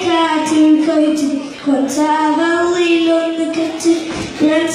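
A boy singing solo into a handheld microphone, a song with long held notes that bend and glide in pitch.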